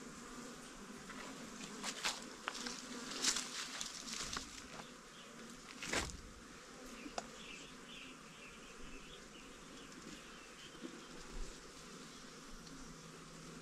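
A swarm of flying insects buzzing steadily. Sharp clicks and cracks cluster between about two and five seconds in, with one louder knock about six seconds in.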